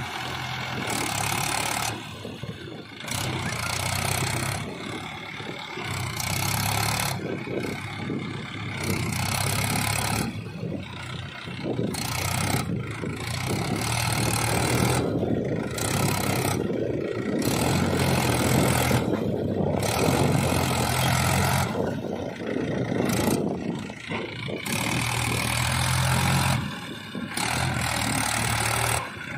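Mahindra 585 DI tractor's diesel engine running hard under load as it climbs a loose sand dune with its rear tyres digging in, the sound surging and easing every couple of seconds.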